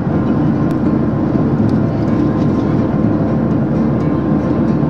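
Jet airliner cabin noise in cruise: a steady, even rush of engine and air noise heard inside the cabin, with a faint steady hum under it.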